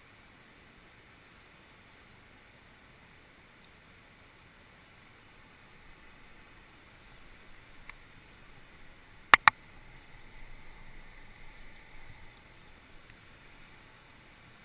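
Climbing gear being handled: rustling, with two sharp clicks in quick succession about halfway through. Over a low steady outdoor hiss.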